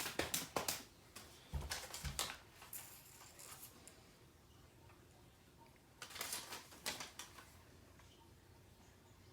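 Gift bag and its styrofoam packing rustling and crinkling in short bursts as it is rummaged through, with a couple of soft knocks about two seconds in.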